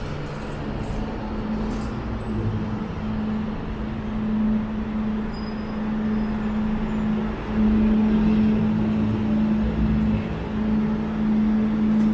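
Downtown street traffic, with a steady low engine hum from a vehicle running close by that gets louder about halfway through.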